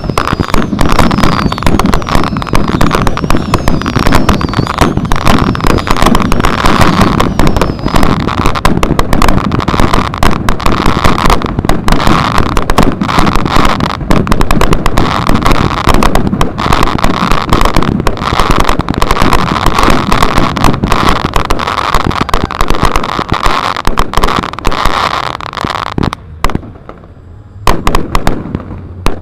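A dense, continuous barrage of crackling and banging fireworks and pyrotechnic charges. About 26 seconds in it thins out to a few separate bangs.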